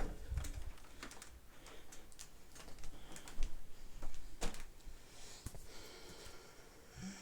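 Faint, irregular clicks and light taps, like small objects being handled.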